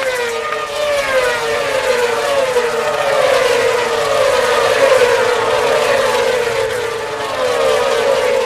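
A pack of Moto2 racing motorcycles with 600 cc Honda four-cylinder engines passing at high revs, many engines at once. Their pitches keep sliding down as bikes go by and shift up, the sound swelling to a peak midway and easing near the end.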